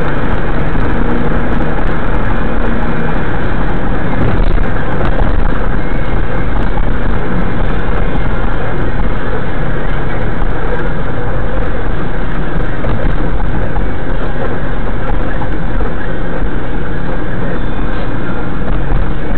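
Steady, loud road and engine noise of a moving minivan, heard from inside the cabin.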